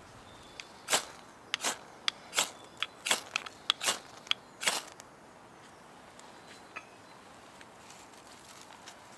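Ferro rod scraped hard with a steel striker to throw sparks onto wood shavings: about a dozen quick, sharp scrapes over about four seconds.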